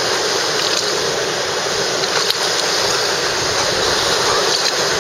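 Steady rush of whitewater around an inflatable raft running a river rapid.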